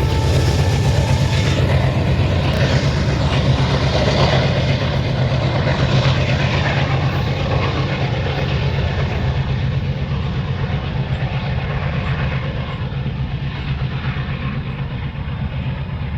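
Diesel locomotive running as a distributed power unit (DPU) in a train, its engine chugging with a heavy low throb that slowly fades.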